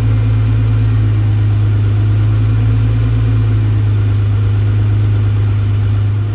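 2004 Acura NSX's V6 engine running steadily with an even hum, breathing through a newly fitted GruppeM carbon-fibre intake.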